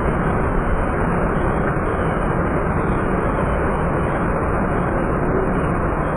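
Muddy flash-flood water rushing past in a fast torrent: a loud, steady wash of noise.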